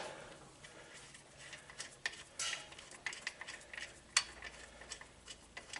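Hand tools working on a motorcycle's rear-end fittings: light metallic clinks and clicks at irregular intervals, the sharpest about four seconds in.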